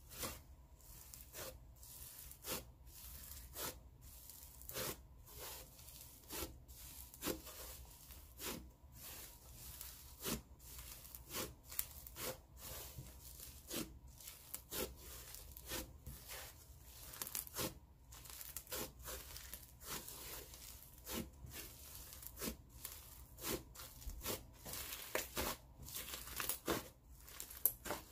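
Fluffy clay slime being pressed and patted by hand on a table: a run of sharp sticky pops and crackles, about one or two a second, with a faint tearing sizzle in between as the slime pulls off the hands and table.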